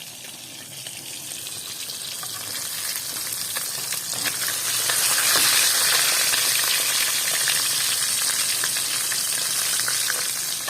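Fish frying in hot oil: a steady sizzle that grows louder over the first five seconds, then holds.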